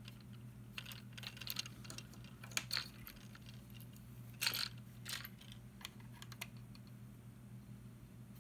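Lego minifigures and plastic pieces being handled and pressed onto their stands: scattered light plastic clicks and taps. A few louder ones come about two and a half and four and a half seconds in, over a faint steady low hum.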